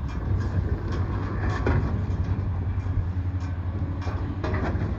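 Diesel engine of heavy log-handling machinery running steadily with a low drone, with a few scattered knocks.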